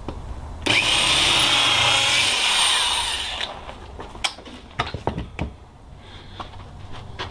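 Corded electric drill boring a hole through a small wooden spacer block into the board beneath. It runs loudly for about three seconds with a high whine, then stops. A few sharp knocks follow as the drill is put down on the wooden workbench.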